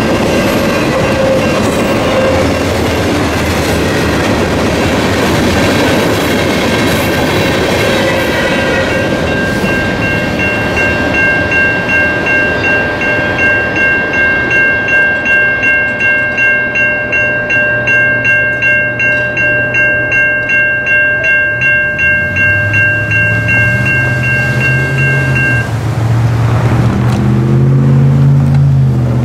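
The last cars of a CN freight train rolling and clattering past a grade crossing while the crossing's warning bells ring. Once the train has cleared, the bells keep ringing in a steady, even pulse and then cut off near the end. Road vehicles' engines pick up and pull across the tracks as the bells fall silent.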